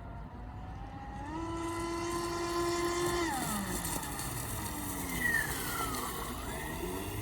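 RC racing boat's Scorpion 5035 500 kV brushless motor on 12S whining under throttle: its pitch climbs about a second in, holds high, drops sharply just after three seconds, then sweeps down and back up again near the end.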